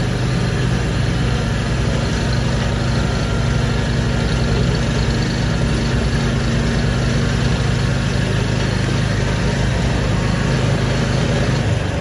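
Engine of an open, doorless off-road buggy running at a steady pitch while driving along a dirt trail, under a constant rush of tyre and air noise.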